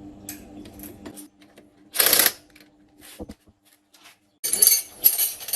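A faint steady hum that stops about a second in, a short burst of noise about two seconds in, then from about four and a half seconds dense, rapid clicking and clattering, typical of metal parts and tools being handled.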